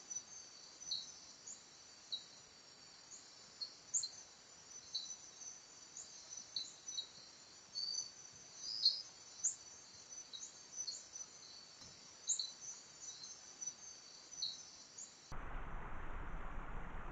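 Night chorus of insects: a steady high trill with scattered short, sharp chirps. About fifteen seconds in it gives way abruptly to the steady rushing of a forest stream.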